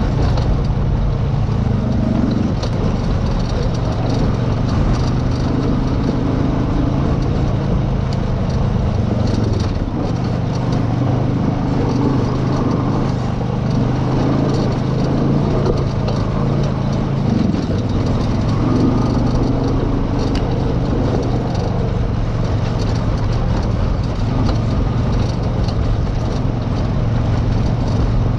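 ATV engine running at low speed on a rocky trail, its pitch rising and falling every few seconds as the throttle is worked.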